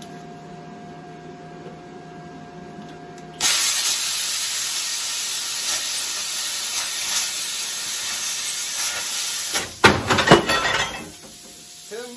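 Cheap plasma cutter at work: a steady machine hum, then about three and a half seconds in the arc strikes and the torch cuts through rusty diamond-plate steel with a loud, even hiss for about six seconds. The hiss breaks into crackling and sputtering as the cut ends, dropping back to the quieter hum, with a few short squeaks near the end.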